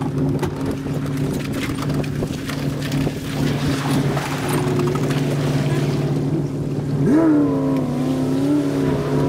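Motor vehicle or boat engine running with a steady hum. About seven seconds in, a rising tone sweeps up and settles into a wavering hum.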